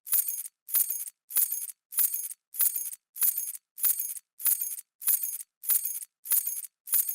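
A bunch of metal keys dropping and jingling, a short bright clatter repeated at an even pace, about every 0.6 seconds, about a dozen times.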